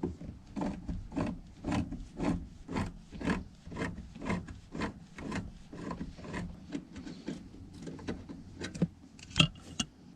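Rasping, scraping strokes of a hand tool working metal on a truck door hinge, about two a second, with one sharp click near the end.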